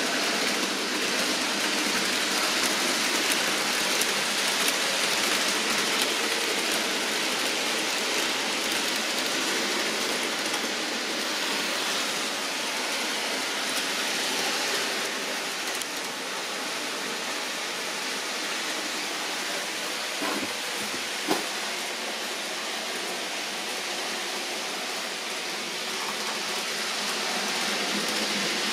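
Model HST train running on a model railway layout: a steady rushing rumble of the wheels and motor on the track. It fades a little midway and grows louder again near the end, with one sharp click about three-quarters of the way through.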